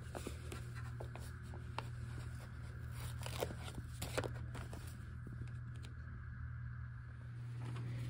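Small plastic toy pieces being handled: scattered light clicks and scrapes, with two sharper clicks about three and a half and four seconds in, over a steady low hum.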